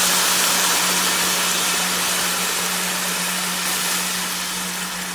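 Hot water poured into a pan of rice and toasted orzo coated in hot ghee, sizzling hard as it hits the fat, while a spatula stirs; the sizzle slowly dies down. A steady low hum runs underneath.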